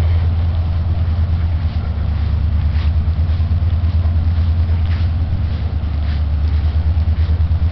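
Steady low engine rumble with a fast, even throb and a few faint ticks over it.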